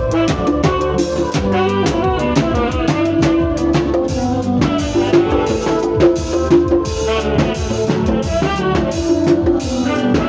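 Electronic arranger keyboard playing bango-style music: a busy, steady drum-kit rhythm under keyboard melody lines with brass-like tones.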